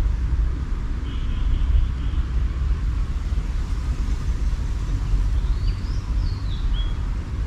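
Steady low rumble, with a bird chirping briefly about two seconds in and again a few times near the end.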